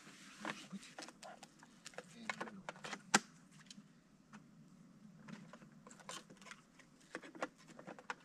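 Small clicks, taps and rustles of gear being handled and packed by hand, with one sharp click about three seconds in.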